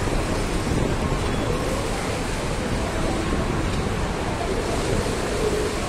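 Steady traffic noise from heavy vehicles running close by: a bus and a truck with engines on.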